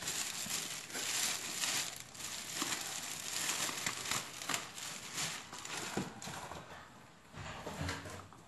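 Plastic bag crinkling and rustling as a boxed camera is pulled out of it, with many small crackles. The crinkling is busiest for the first six seconds, then grows quieter.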